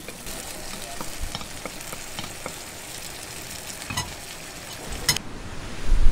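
Eggs frying in a pan: a steady sizzle with scattered pops and clicks. Near the end a low rumble of wind on the microphone rises.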